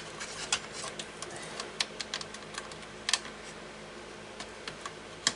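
Scattered small plastic clicks and taps as two cable connectors are pushed onto the back of a slim optical drive, with a sharper click about three seconds in and another near the end.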